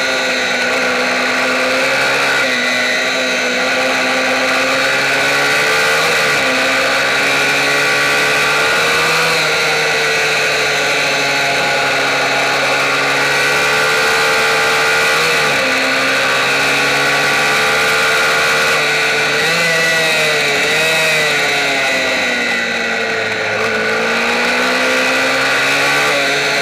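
Kayo MiniGP racing minibike's engine running hard, heard close-up from a camera on the bike. Its pitch drops as the bike slows for each corner and climbs again as it accelerates out, several times over.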